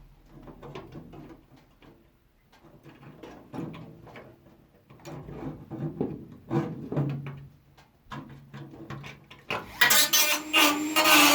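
Intermittent metallic knocks and clatter of tools and panels being handled, then an electric power tool suddenly starts running, loud and steady, near the end.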